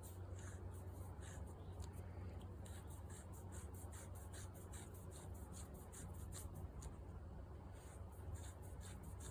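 Faint scratching and ticking of a drill press chuck being worked by hand as WD-40 is worked into it, the chuck still catching, over a steady low hum.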